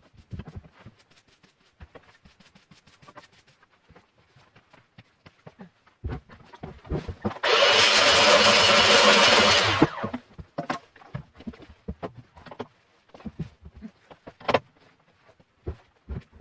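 Scattered knocks and clicks of handling, then about seven seconds in a loud, steady rush of machine noise for about two seconds that cuts off suddenly, followed by more knocks.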